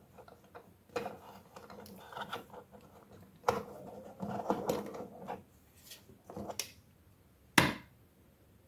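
Plastic parts of a transforming toy robot clicking, knocking and rubbing as they are handled, in irregular bursts, with one sharp click near the end.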